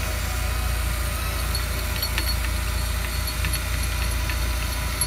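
A boat engine running steadily as a low, even hum, with a few faint ticks about halfway through.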